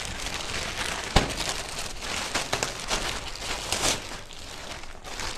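Clear plastic packaging crinkling and rustling steadily as it is handled and pulled open, with one sharp snap about a second in.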